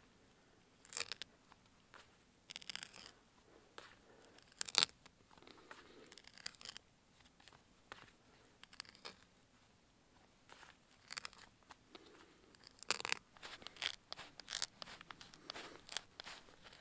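T-handle hand auger boring into a short log section: irregular crunching and creaking as the spiral bit cuts the wood, in uneven strokes with a few louder crunches and a quieter spell midway.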